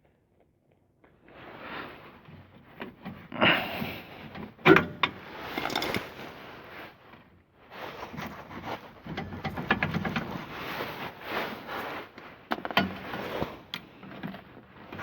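A new rear shock absorber being worked into its mounts on a pickup truck: irregular scraping and rattling of metal parts, with several sharp knocks as it is wiggled into place.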